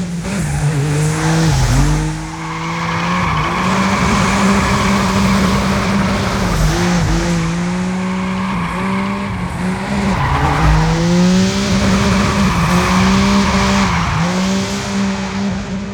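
FPV quadcopter's motors and propellers buzzing loudly, the pitch dipping and climbing back several times as the throttle is chopped and punched during the flying.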